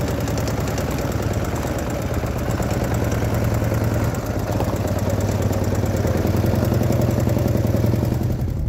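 German World War II-era sidecar motorcycle's engine running steadily while being ridden.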